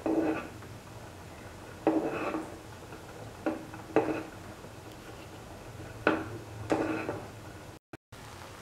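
Metal spoon clinking and scraping against a steel pot of boiling rice as it is stirred, about six knocks, each with a short ring.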